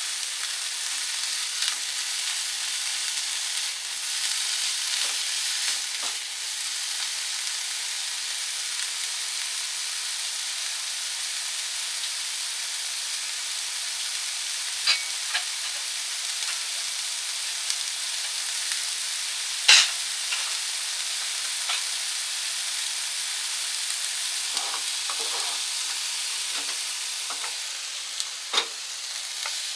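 Green peppers sizzling as they are stir-fried in a pan, a steady hiss broken by scattered sharp clicks of a utensil against the pan. The loudest click comes about two-thirds of the way through, and a run of softer knocks follows near the end.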